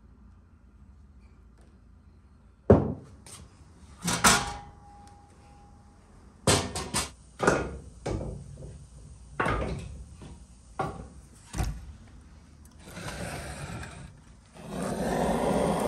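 A series of about ten irregular knocks and clatters, the first and loudest about three seconds in, followed near the end by a steady rushing noise.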